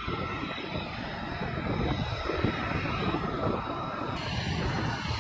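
F-35B Lightning II's single F135 turbofan engine running at taxi power: a steady high whine over a broad rumble.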